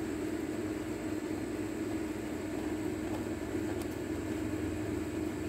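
Steady mechanical hum with a constant low tone and a faint hiss, and one faint click near the end.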